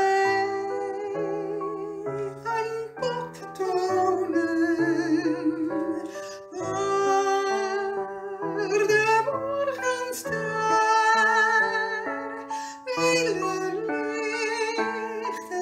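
Music: a singing voice holding long notes with vibrato over keyboard accompaniment that changes chord every second or so.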